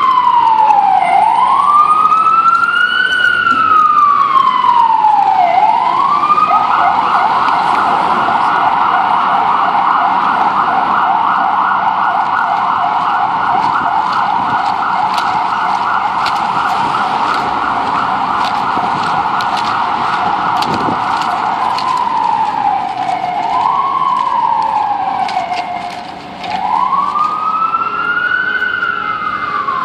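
Ambulance siren sounding a slow wail that rises and falls every two to three seconds, switching about six seconds in to a fast yelp, then back to the wail about 22 seconds in, growing a little fainter as the ambulance moves off.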